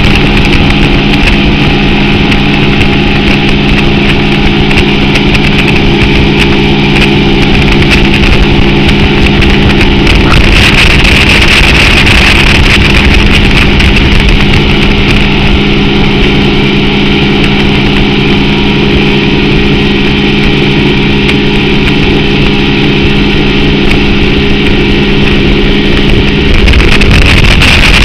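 A 150-horsepower outboard motor running steadily at speed while towing, its steady drone mixed with rushing wake water and wind on the microphone. Near the end the engine tone fades under louder wind and water noise.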